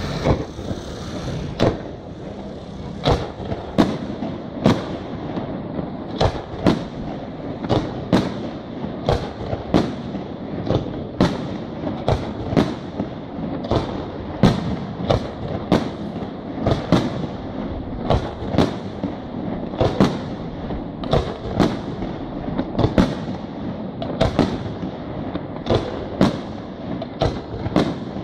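Aerial firework shells bursting in a steady barrage, a sharp bang about once a second, with a continuous echoing rumble between the bangs.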